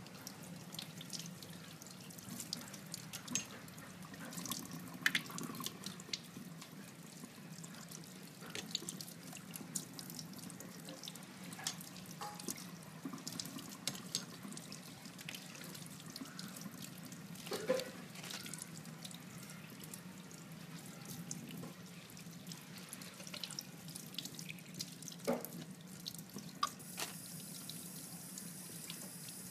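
Kitchen tap running into a stainless steel sink while a squid is washed and peeled under the stream, water splashing off the hands and squid, with many small clicks and knocks scattered throughout.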